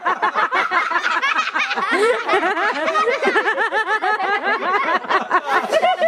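A group of monkeys chattering: many rapid, high squeaky calls overlapping in a continuous run.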